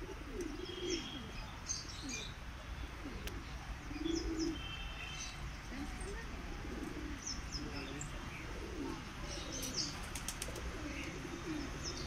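A flock of white pigeons cooing over and over, with short high chirps scattered among the coos.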